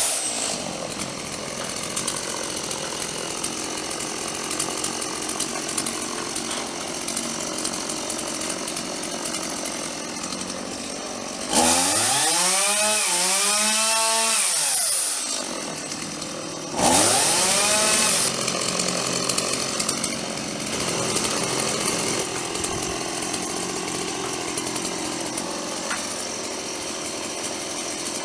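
Stihl chainsaw idling, then revved up hard twice: a long rev of about three and a half seconds, its pitch rising and falling away, and a short second rev soon after.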